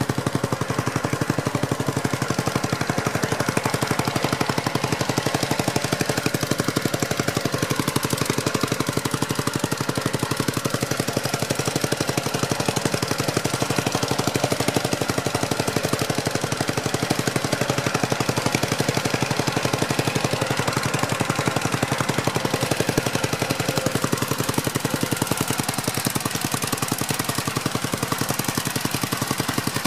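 Gravely garden tractor engine running steadily at close range, a rapid, even exhaust beat.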